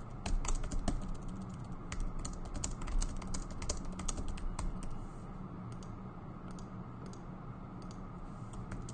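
Typing on a computer keyboard: quick runs of keystrokes for about the first five seconds, then only a few scattered clicks.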